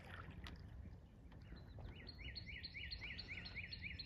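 A bird calling a quick series of about ten short, high whistled notes, roughly four a second, starting about one and a half seconds in, over a faint low background noise.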